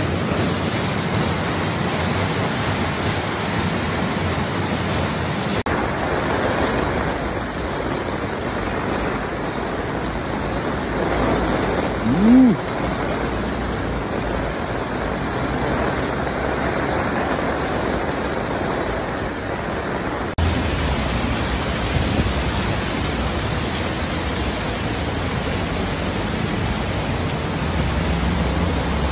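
Torrential rain and floodwater rushing through city streets, a steady dense rush of water whose character changes abruptly twice. About 12 seconds in, a brief rising-then-falling tone stands out as the loudest moment.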